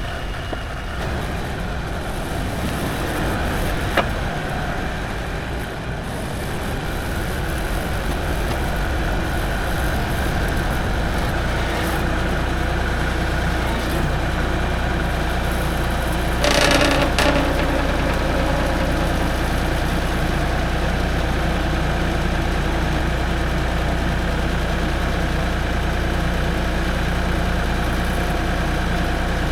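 Tractor engine running steadily while it creeps along carrying the sawmill on its forks. There is a sharp click about four seconds in and a brief burst of noise around the middle.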